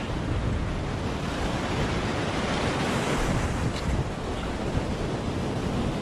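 Ocean surf washing in the shallows of a sandy beach, with wind buffeting the microphone.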